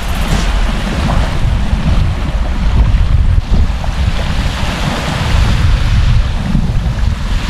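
Small waves washing up onto a sandy beach, with wind buffeting the microphone in a heavy, uneven low rumble.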